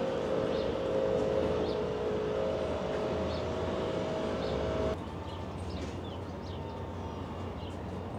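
Outdoor park ambience: a steady droning hum over background noise for about five seconds, then an abrupt drop to quieter ambience. Birds chirp throughout.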